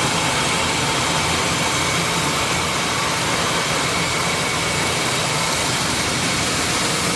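Maize milling machine running steadily, a constant loud mechanical hum with a faint high whine and no change in load.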